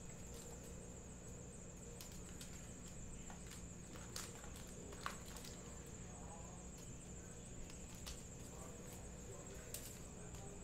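Faint scattered ticks and crinkles of foil-wrapped trading card packs and a sticker sheet being handled, as the packs are stickered with numbers. They sit over a steady low electrical hum, with a couple of sharper clicks about four and five seconds in.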